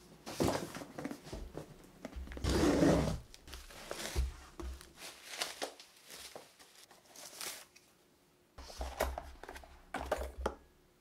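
A parcel being unpacked: packing tape cut and torn off a cardboard box with scissors, then bubble wrap rustling and crinkling as wrapped items are pulled out. Irregular bursts of tearing and crinkling, loudest a few seconds in, with a last cluster near the end as a cardboard box is handled.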